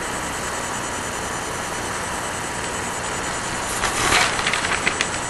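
Steady hiss of a recording's microphone background noise during a pause in speech. About four seconds in comes a short burst of noise, then a few sharp clicks.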